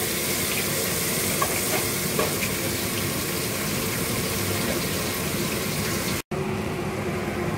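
Sliced onions sizzling steadily as they fry in oil in an open pressure cooker. They are browning toward golden.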